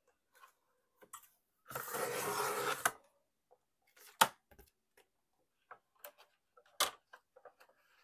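Fiskars sliding paper trimmer cutting through a paper collage board: the blade carriage runs along the rail for about a second, followed by two sharp clacks and light paper handling.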